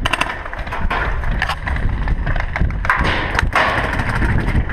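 Rumbling, scuffing movement noise on a helmet-mounted camera as its wearer shifts position, with a few faint ticks and a brief noisy swell about three seconds in.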